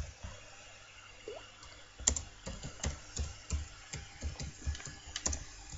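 Typing on a computer keyboard: quiet at first, then a quick run of key clicks from about two seconds in, several a second.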